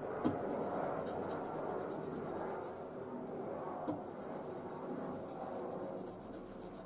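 Nickel silver handle fitting of a puukko knife being rubbed back and forth on an old worn abrasive grinding belt, a steady scratchy scrubbing that polishes the metal. A sharp knock comes about a quarter second in and another near four seconds.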